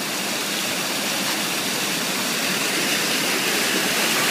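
Steady rush of churning, splashing pool water, growing a little louder toward the end.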